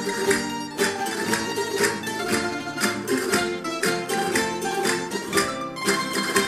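Live Valencian folk music for the bolero pla, played by a small band of guitars and other plucked strings. It has a lively strummed rhythm with sharp accents several times a second.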